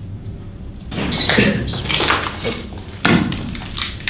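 Irregular knocks, scrapes and crunches of burned debris being shifted and poked on a rubble-strewn concrete floor, starting about a second in, the sharpest knock about three seconds in.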